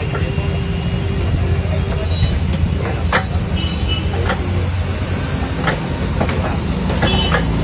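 Steady low mechanical rumble with scattered sharp clicks and knocks.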